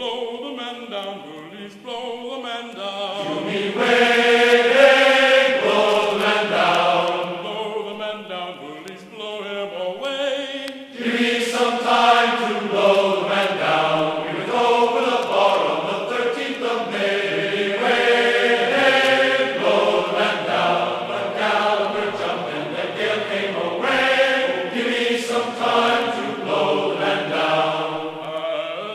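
Background vocal music: singing in held notes that step from one pitch to the next, swelling about four seconds in and rising again after a brief dip near eleven seconds.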